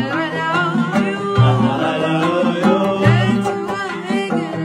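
A boy singing a Gulf Arabic tarab song, accompanied by a plucked oud and a qanun. A low bass note recurs about every second and a half under the melody.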